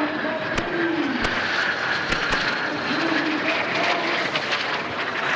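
Aero L-39 Albatros jet trainers flying overhead in formation: steady jet engine noise with faint whining tones that bend slowly up and down in pitch as they pass.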